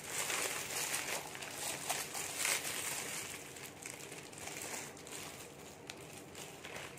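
Clear plastic wrapping crinkling and rustling as it is pulled off a small figurine by hand, loudest in the first few seconds, then fading.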